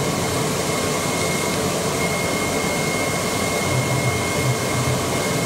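CNC flatbed cardboard cutter running while it cuts 2 mm E-flute corrugated sheet: a steady rushing air noise, with a thin high whine joining about two seconds in.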